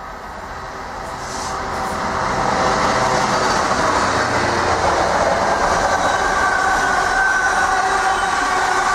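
Container freight train hauled by a locomotive passing through a station, growing louder over the first couple of seconds as it approaches, then the steady noise of the wagons running over the rails. A thin high tone joins about halfway through.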